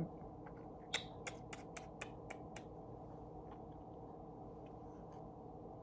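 Cat nail clippers clicking: a quick run of about seven sharp clicks, roughly four a second, about a second in, over a faint steady hum.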